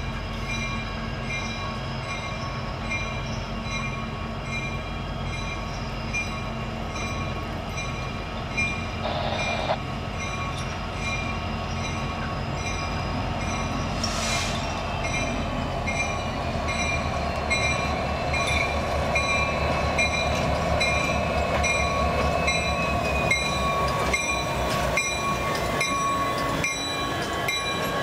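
Union Pacific diesel locomotive hauling a passenger trainset slowly past: the engine's steady, pulsing rumble mixed with the rolling of the train, growing louder over the second half as it draws level.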